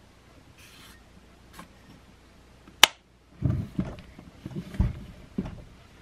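Handling noise from a furnace blower motor being put back together: one sharp metallic click about three seconds in, then a run of heavier clunks as the steel motor case is knocked about and laid down on the workbench.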